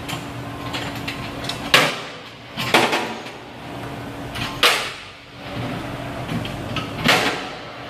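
Metal dome lids on a stainless tank trailer's hatch being opened and shut: four sharp clanks, a second or two apart, over a steady low hum.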